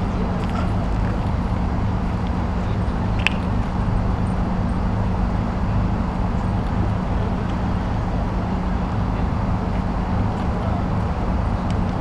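Steady city background rumble with a constant low hum, like distant traffic; a brief high chirp about three seconds in.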